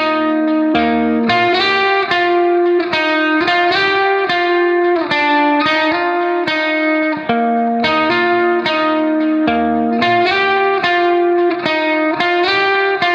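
Background instrumental music: a melody of quick plucked notes, a new note about every half second.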